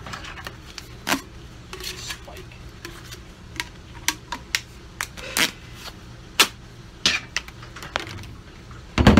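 Irregular clicks, knocks and light clatter of hard tool parts being handled, with a sharper knock about nine seconds in.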